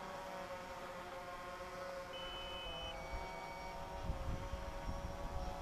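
DJI Phantom 4 quadcopter's propellers humming overhead, several steady tones that drift slightly in pitch. About two seconds in, an electronic two-part beep sounds, a high tone dropping to a lower one: the low-battery warning that starts once the battery is down to 30%. A low rumble rises near the end.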